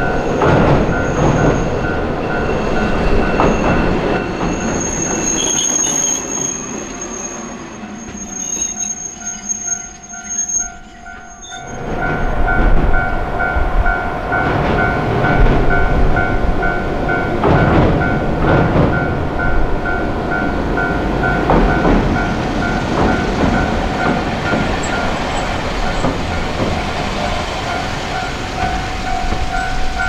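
Japanese level-crossing warning bell ringing in a steady, even pulse while a Hankai Tramway tram passes. The tram's wheels squeal thin and high in the first half, and its running rumble with wheel clatter fills the second half.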